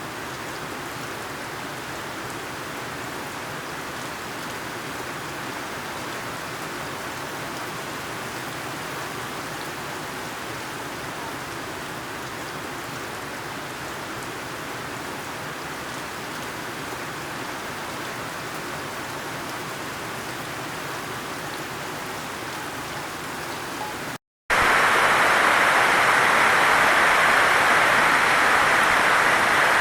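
Heavy rain falling: a steady, even hiss of rain with no other sounds. About 24 seconds in it cuts out for a moment, then comes back as a louder, hissier stretch of noise.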